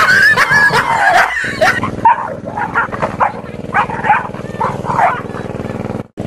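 A dog yelping and barking in agitation at a threatening toy tiger: a high drawn-out yelp at the start, then a quick run of about eight sharp barks.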